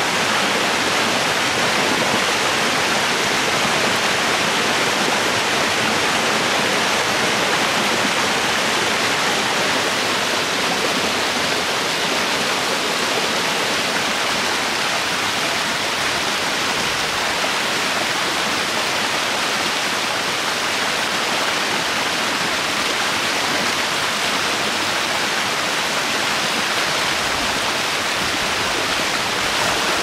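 River rapids: fast white water rushing over and between boulders, a loud, steady rush.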